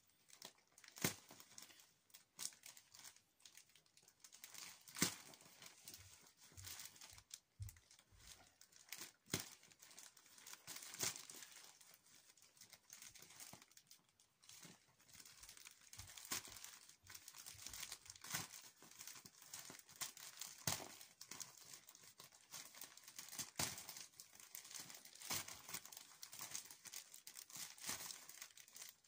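White plastic postal bag crinkling and rustling as hands pick at its packing tape and tear it open, with irregular sharp crackles.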